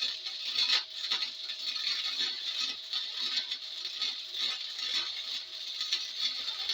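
MIG welding arc crackling steadily and unevenly while a weld bead is run along a steel truck frame seam, with a faint steady hum under it.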